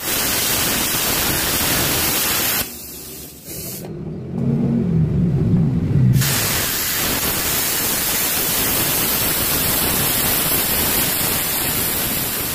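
Izumi Cut 40 inverter air-plasma cutter cutting steel plate: a loud, steady hiss of the plasma arc and air jet. It stops about two and a half seconds in, leaving a few seconds of quieter, lower rumbling, then starts again about six seconds in and runs on.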